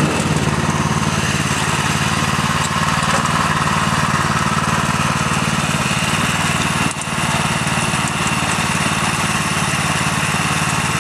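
Small engine of a Merry Tiller running steadily under load as its tines churn garden soil, with a brief dip in level about seven seconds in.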